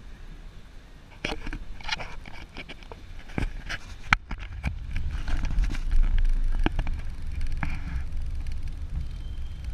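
Road and engine rumble heard inside a moving Nissan car, growing heavier about halfway through. Over it come a run of sharp clicks and knocks, the sharpest about four seconds in.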